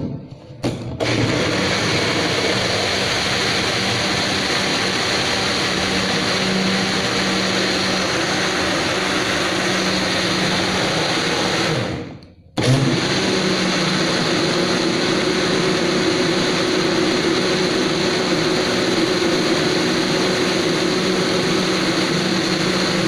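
Mix Blend personal cup blender running loudly and steadily, blending sliced bananas with milk into a shake. It stops briefly about halfway, then runs again with a higher-pitched hum.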